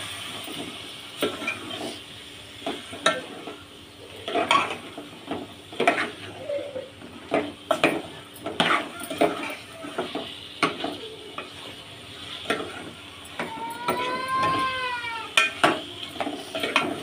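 A spoon scraping and clicking against a metal pot while it stirs potato chunks being fried in thick, sizzling masala. About fourteen seconds in, a short high-pitched call rises and falls over the stirring.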